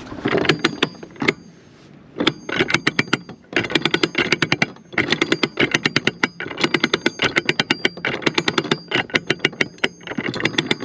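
Manual anchor windlass being cranked to haul up the anchor: rapid metallic clicking in repeated bursts of about a second, one per stroke of the handle, with a faint ringing.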